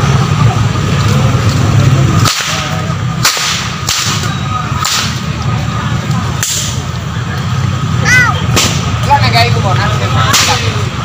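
Long Indonesian whips (pecut) being cracked by several men in turn: a run of sharp, loud cracks, about seven of them, spaced roughly one to two seconds apart.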